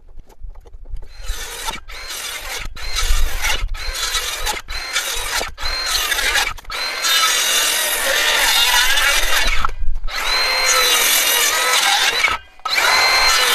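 Circular saw cutting through timber joists, a high whine over the noise of the cut, in a string of short cuts with brief breaks, then longer continuous cuts in the second half.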